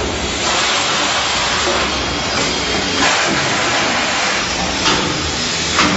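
Steady loud hiss, with a few brief sharper noises about three, five and six seconds in.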